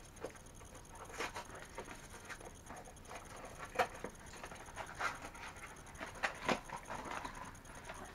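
Scattered rustles, crinkles and light taps of Funko Mystery Minis packaging being handled: small cardboard boxes and the foil blind bags inside them. A few sharper taps come about a second in, about four seconds in, and twice about six seconds in.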